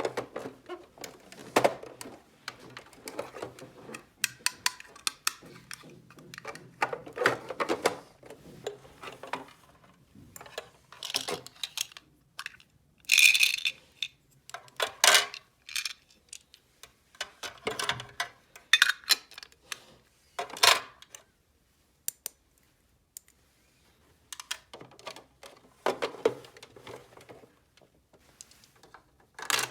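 Small plastic toy pieces being handled: irregular clicks, taps and short clatters as parts are set down, snapped and knocked together, with a few brief pauses.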